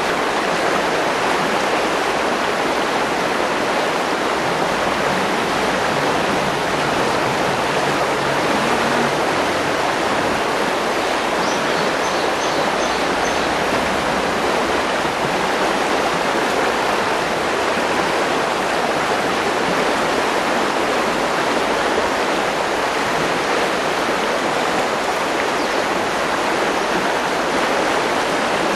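Mountain river rushing past the boulder: a steady, even rush of flowing water that does not let up.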